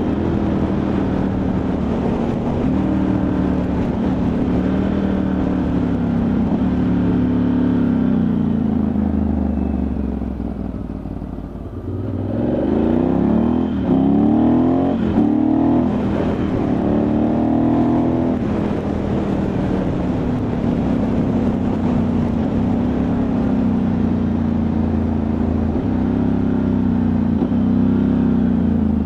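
Ducati Multistrada 1100S air-cooled V-twin engine running on the road. It runs steadily, drops off about ten seconds in, then rises in pitch several times in quick succession through gear changes from about twelve seconds before settling back to a steady pull.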